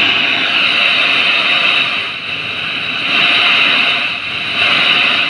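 Speaker driven by a 4440 amplifier giving out a loud, steady hiss that dips a little twice. It comes from the channel that had no sound and shows that this channel works again now that its CD4440 amplifier IC has been replaced.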